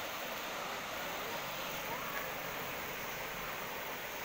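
Steady rushing of water spilling over a concrete weir.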